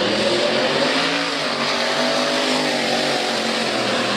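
Engine of a 1970s Chevrolet pickup truck accelerating hard off the drag strip start line, its pitch dipping and climbing as it pulls away down the track.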